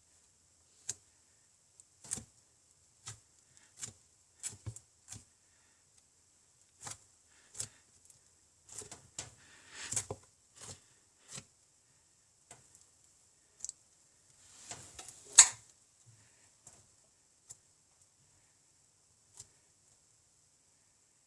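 Butter slime (slime worked with Model Magic clay) being spread and worked: irregular soft sticky clicks and pops, with short crackly stretches around the middle and the loudest pop about three-quarters of the way through.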